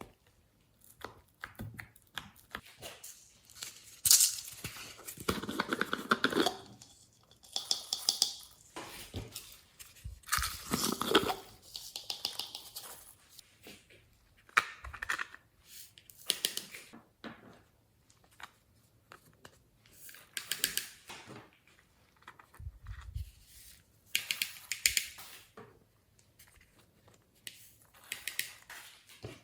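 Slime being worked by hand: irregular bursts of sticky crackling and popping, each lasting about a second, as the slime is squeezed, stretched and folded.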